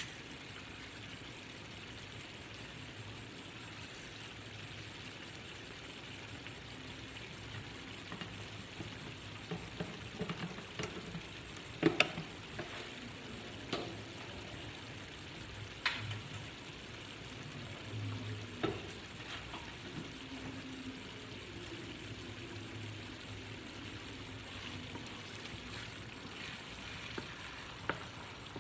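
Minced meat sizzling steadily in a frying pan as it is stirred with a wooden spoon. A few sharp knocks against the cookware cut through the sizzle, the loudest about twelve seconds in.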